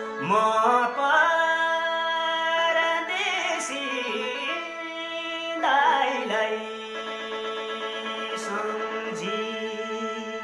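A voice singing a Nepali Teej folk tune (tij ko bhaka) in long, sliding, ornamented phrases over a steady held instrumental drone. New phrases begin right at the start, about three seconds in, and just under six seconds in.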